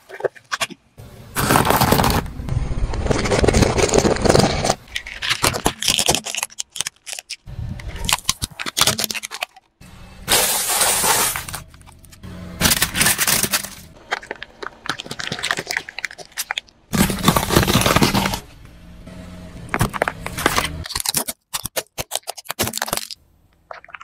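A series of separate crushing sounds as a car tyre rolls over objects: cracking, crunching plastic food trays and squashed fruit. Each burst lasts a few seconds and cuts off abruptly.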